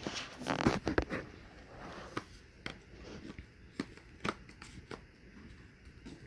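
Cardboard puzzle cards being handled and set down on a cardboard game box: a cluster of taps and rustles in the first second, then scattered light taps.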